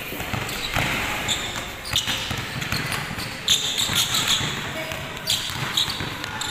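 Several basketballs bouncing unevenly on a hard court, with sneakers shuffling and scuffing between the bounces.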